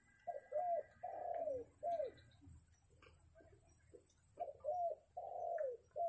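Spotted dove (tekukur) cooing: a four-note phrase with a long third note, given twice, about four seconds apart.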